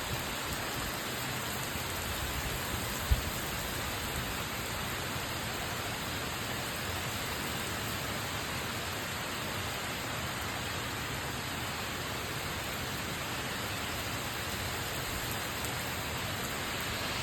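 Steady rain falling, an even unbroken hiss, with one short low thump about three seconds in.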